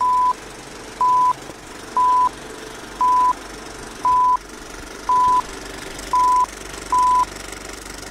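Film-leader countdown sound effect: a short, high, steady beep about once a second, eight beeps in all, over a continuous hiss.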